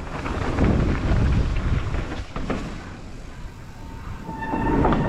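Wind buffeting the camera microphone and rolling rumble with rattling clicks from a mountain bike on a dirt trail, easing off after about two seconds. A short high squeal sounds near the end.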